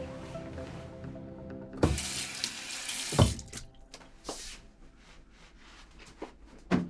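Bathroom sink tap running for about a second and a half, with splashing as a face is washed in it, then a shorter gush; a few knocks and clicks around it, and soft background music over the first two seconds.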